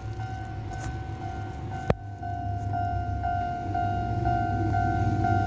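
Japanese level-crossing warning bell clanging about twice a second, ringing louder in the second half. Underneath is a low rumble from the approaching Chichibu Railway train, and there is a single sharp click about two seconds in.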